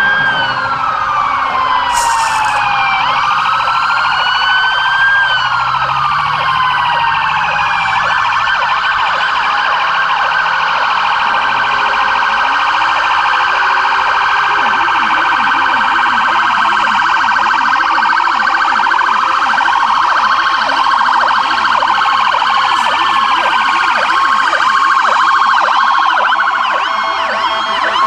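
Several fire-department emergency-vehicle sirens sounding at once and overlapping: slow wails rising and falling, joined from several seconds in by fast warbling yelps that fill the rest of the stretch.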